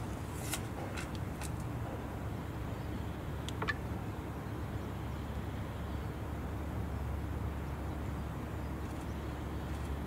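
Steady low outdoor rumble with a few brief high clicks and chirps in the first four seconds, the clearest about three and a half seconds in.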